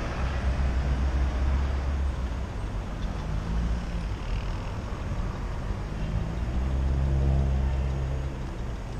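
City street traffic: motor vehicle engines running close by, loudest about seven seconds in, over a low rumble.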